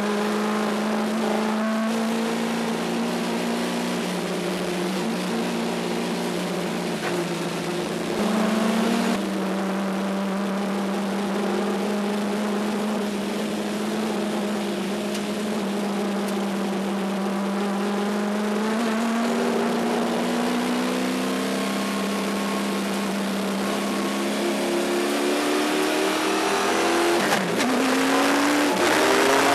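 Race-prepared Pontiac Trans Am's 700-plus-horsepower V8 heard from inside the cockpit, running at a fairly steady engine speed with a few small steps in pitch. Near the end the pitch drops sharply and then climbs as the car accelerates.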